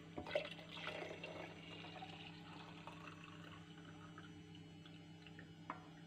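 Grape juice poured from a saucepan into a glass jar: a faint trickle and splash, strongest in the first couple of seconds, with a small knock shortly before the end.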